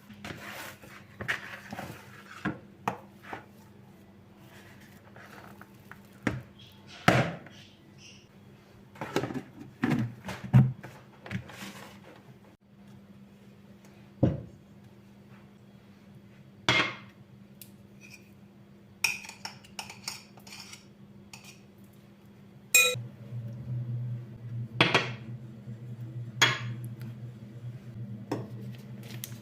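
Kitchen work sounds: dishes and utensils clinking and knocking now and then, with a steady low hum of an appliance starting about three quarters of the way through.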